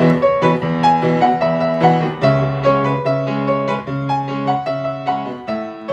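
Background piano music: a gentle melody of separate notes over held chords, fading toward the end.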